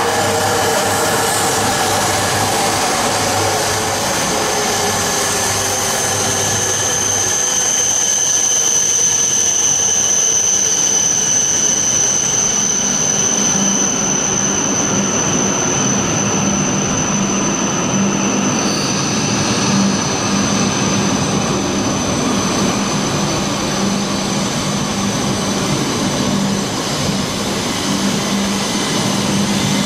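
Coupled E3 and E5 Shinkansen train running slowly along the platform as it pulls in. Its motor whine falls in pitch over the first several seconds under a steady high whine, and a low pulsing hum comes in about halfway through.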